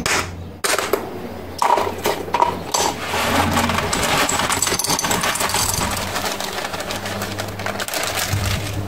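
Hands digging in potting soil and grit around a succulent: a dense run of small scratches and clicks from about three seconds in, over a steady low hum.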